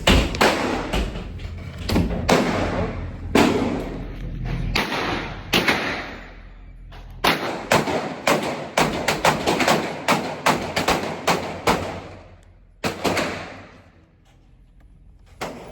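Gunshots echoing through an indoor shooting range: a few spaced shots at first, then a quick string of about three shots a second for several seconds, and a couple of single shots after.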